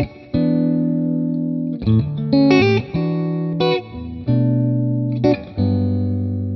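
Background music: guitar chords played with effects, each chord held for a second or two before the next is struck.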